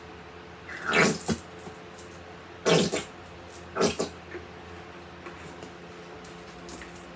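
Plastic squeeze bottle of barbecue sauce squirted three times, each squeeze a short sputtering squirt of sauce and air into a bowl of beef.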